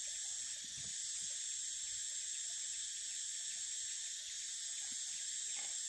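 Steady high-pitched drone of insects in the forest.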